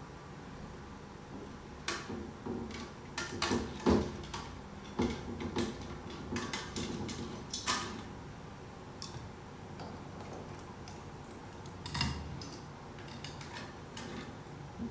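Metal parts of an automatic transmission being handled during a teardown: irregular clicks, clinks and knocks, the loudest about four, eight and twelve seconds in.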